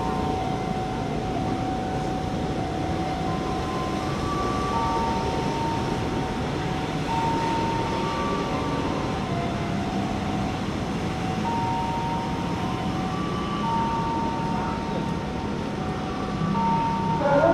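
Railway station platform ambience: a steady noise bed with a low hum, and over it a slow tune of held, pure-sounding notes stepping between a few pitches.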